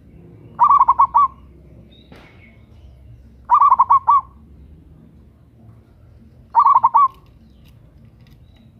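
Zebra dove (local perkutut) cooing: three short phrases of four or five quick notes each, spaced about three seconds apart.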